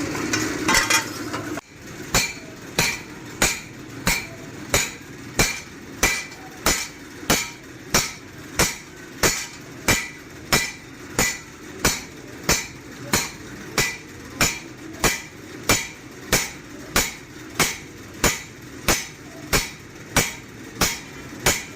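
Hammer striking a steel forage-cutter blade on an anvil, metal on metal with a bright ring, in a steady rhythm of about three blows every two seconds. A steady noise with a low hum runs before the hammering and cuts off suddenly about a second and a half in.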